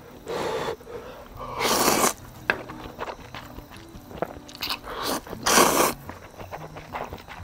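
Eating: several loud crunchy bites and chewing of kimchi and ramen, over faint background music.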